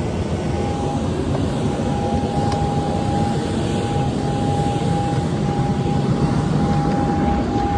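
Airliner cabin noise: the jet engines and airflow make a steady low rumble and rush, with a constant high whine running over it.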